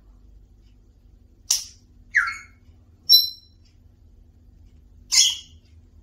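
African grey parrot giving four short squawks and calls, one of them a brief, sharp whistle about three seconds in.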